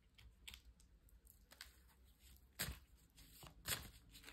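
Faint rustling of playing-card stock being handled, with two louder brushes about two and a half and three and a half seconds in.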